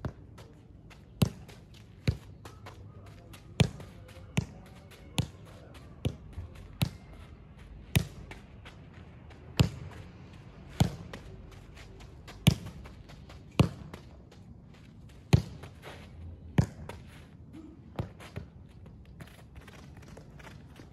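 Soccer ball being juggled: a sharp thump of each touch on the ball about once a second, irregularly spaced and varying in strength, with lighter taps and scuffs between.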